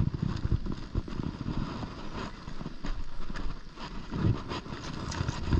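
Uneven low rumble of wind on the microphone, with a few light knocks and rattles as a bass is worked off an umbrella rig.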